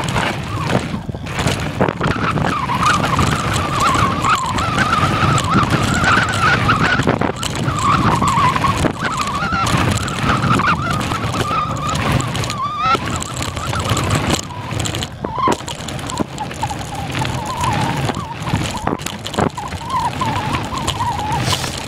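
Mountain bike riding down a rough trail: tyres rumbling over the ground and the bike knocking and rattling over bumps, with a wavering whine through much of it.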